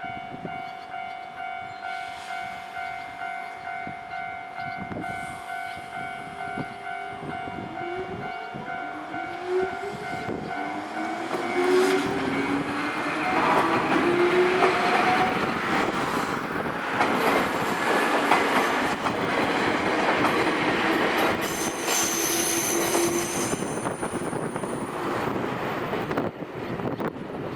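Japanese level-crossing warning bell ringing about twice a second. A Nankai Koya Line electric train then comes through: a rising whine from its motors, then the noise and clatter of the wheels on the rails, loudest in the second half, with a brief high squeal near the end.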